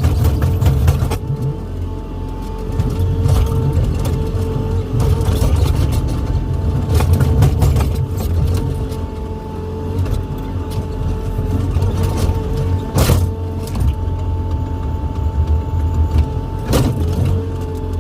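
Hydraulic excavator working: the diesel engine runs under load with a steady low rumble and a steady tone from the hydraulics above it, and two sharp knocks of the machine's metal parts come in the second half.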